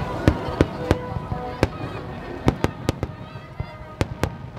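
Fireworks going off: a string of sharp bangs at irregular intervals, about ten in all.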